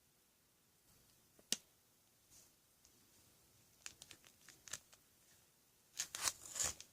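Trading-card packs being handled: a sharp tap about a second and a half in, a few light clicks later, then a short stretch of crinkling wrapper rustle near the end.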